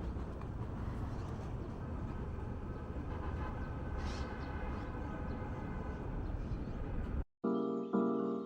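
Steady low outdoor rumble of vehicle traffic, with a faint whine in the middle. It cuts off suddenly near the end and music with evenly spaced notes begins.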